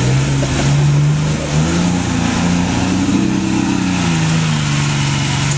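Off-road trial truck's engine revving hard under load as it pushes through deep mud. The pitch climbs about two seconds in, holds, and drops back near the end.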